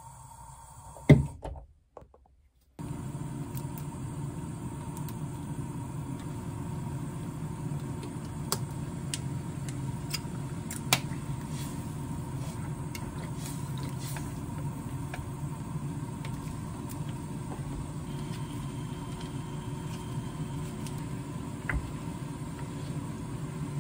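A sharp click about a second in, a brief gap, then a steady low kitchen hum with scattered light clicks as wooden chopsticks stir tteokbokki simmering in a frying pan.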